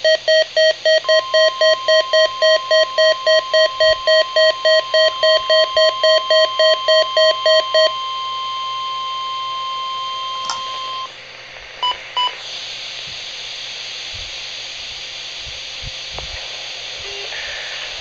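Midland WR-100 weather radio sounding its alert: rapid pulsing beeps, about three a second, for the first eight seconds, layered over the National Weather Service's warning alarm tone, a steady tone that holds for about ten seconds and cuts off. Two short beeps follow, then steady radio hiss.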